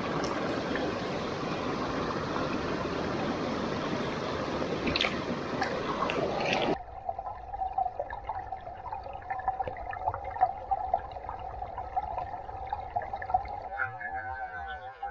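Mountain stream water rushing steadily, with a few light clicks about five seconds in. About seven seconds in it cuts off abruptly to a much quieter, muffled sound with a steady hum.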